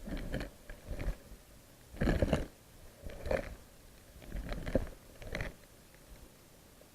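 Six short bursts of crunching, crackling noise, each under half a second, spread evenly with quiet between them.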